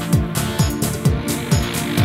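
Background electronic dance music with a steady kick-drum beat, about two beats a second, and percussion over it.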